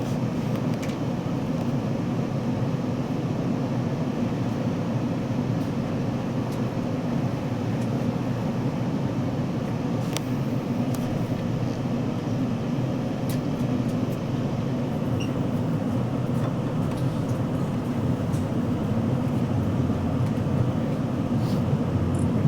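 Passenger train departing a station, heard from inside the carriage: a steady low rumble of running noise with occasional faint clicks, growing a little louder near the end.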